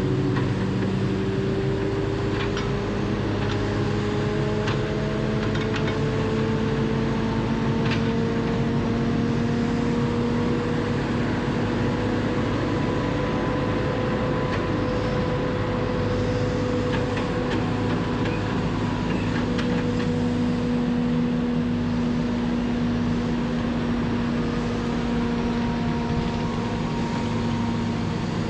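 Diesel engine of a tracked feller buncher running steadily as its boom and saw head grab and move a tree butt. Its pitch rises and falls slowly, with a few light clicks over it.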